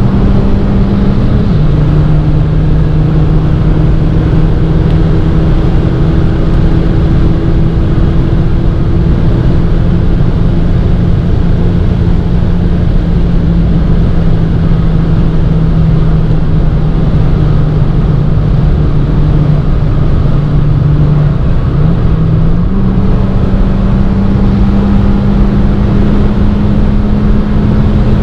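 Cabin sound of a 2017 Abarth 595 Competizione's 1.4-litre turbocharged four-cylinder pulling hard at high revs, with heavy wind and tyre noise at around 190 km/h. An upshift about a second and a half in drops the engine note to a lower pitch, which then holds steady. Near the end the note steps back up with a downshift as the car slows.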